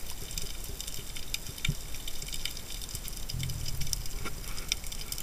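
Underwater ambience picked up by a camera in its housing: scattered crackling clicks throughout, with a brief low rumble about three and a half seconds in.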